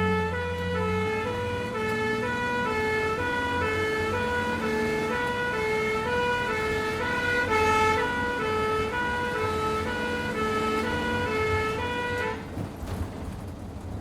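Ambulance two-tone siren alternating between a high and a low note about twice a second over the vehicle's running engine. The siren cuts off suddenly near the end, leaving the engine's low rumble.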